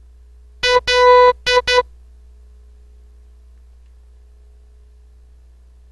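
Morse code letter L sent as an electronic beep tone: one short beep, one long, then two short (dit-dah-dit-dit). A faint steady hum sits underneath.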